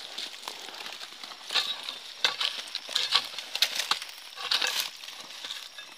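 A metal digging tool scraping and crunching into soil and dry leaf litter at the mouth of a burrow, a string of sharp, irregular scrapes and knocks over a steady rustle.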